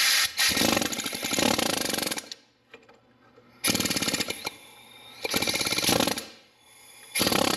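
Pneumatic air hammer with a chisel bit hammering against the cut and cracked old wheel-bearing inner race on a steel hub flange, driving it off. It goes in four bursts of rapid blows, the first about two seconds long, with short pauses between.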